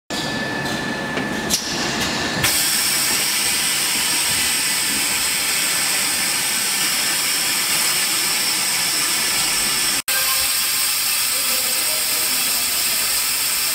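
Automatic armature commutator turning lathe at work. A few seconds of lighter mechanical noise with a click give way, about two and a half seconds in, to a loud, steady high hiss with faint whining tones. The sound cuts out for an instant about ten seconds in.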